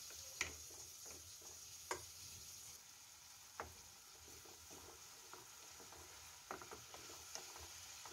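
Faint sizzle of a spice paste with potatoes being slow-fried (kosha) with a splash of water in a wok, stirred with a spatula. A few sharp clicks of the spatula against the pan stand out, several in quick succession near the end.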